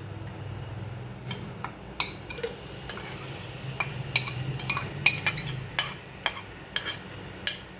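Chopped onions sizzling in hot oil in a pot while a spoon stirs them, knocking and clinking against the pot many times at an irregular pace.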